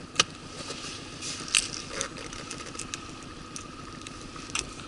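Scattered sharp clicks and light scrapes of fishing tackle being handled (pliers and a plastic tackle box) while a hooked fish is freed, over a steady background hiss of river water.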